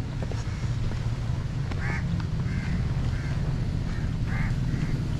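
A bird giving a series of short calls, about one every half second, starting a little under two seconds in, over a steady low rumble.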